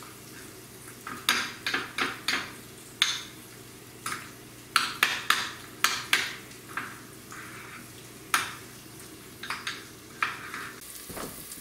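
Metal utensil mashing avocado and stirring guacamole in a bowl: irregular clicks and scrapes against the bowl, coming in quick clusters and thinning out toward the end.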